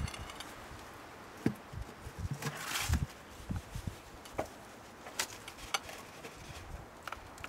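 Scattered knocks, clicks and a scrape of a water meter chamber cover being lifted off and hands reaching into the meter box, with a short scraping rustle between two and three seconds in.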